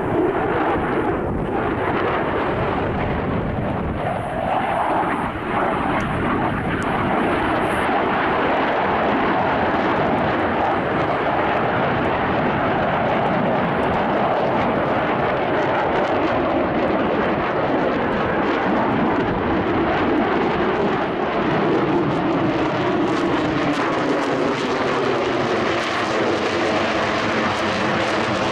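F-35B Lightning II's single Pratt & Whitney F135 jet engine running loud and steady overhead, a continuous jet noise with no break. In the last few seconds its pitch sweeps down and back up as the aircraft moves.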